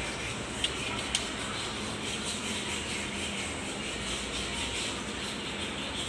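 Sheet-metal battery tray being shifted and rubbed against the steel tractor frame while it is lined up for mounting, with two sharp metal clicks about a second in, over a steady rushing noise.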